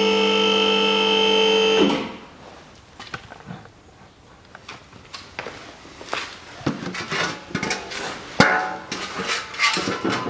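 Electric car-lift motor whining at a steady pitch, cutting off suddenly about two seconds in. Then scattered knocks and clinks of handling, with one sharp knock past the middle, as a stainless steel bowl on the floor is handled.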